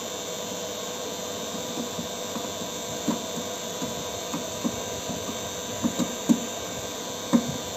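Refrigeration vacuum pump running steadily while the split AC's refrigerant lines are evacuated, with a few light clicks and taps of a screwdriver working the outdoor unit's terminal screws, the sharpest about six seconds in and near the end.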